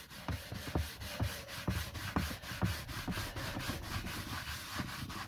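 A blue cloth rubbing briskly back and forth over a freshly oiled wooden marquetry panel, wiping off the excess finishing oil in regular strokes about two a second.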